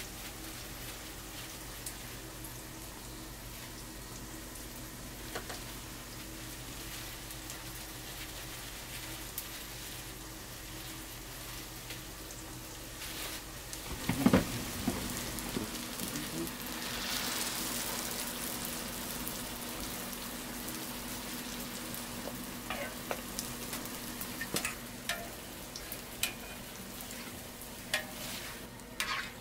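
Glutinous-rice hotteok frying in a pan of hot oil, a steady sizzle. About fourteen seconds in there is a sudden thump, and the sizzle grows louder for a few seconds as a fresh dough ball goes into the oil. A few small taps come near the end.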